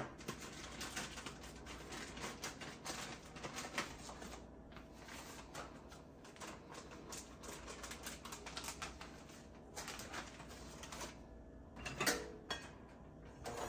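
Plastic bag of powdered sugar crinkling and rustling as it is shaken and squeezed out into a metal mixing bowl, a soft, fast, irregular crackle. About twelve seconds in there are a few louder knocks and clatters as a hand mixer is picked up and handled.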